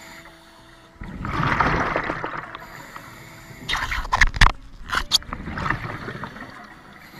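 Underwater camera audio: a loud rush of bubbling and water noise starts about a second in and fades, then a quick string of sharp knocks and clicks against the camera housing comes around four to five seconds in.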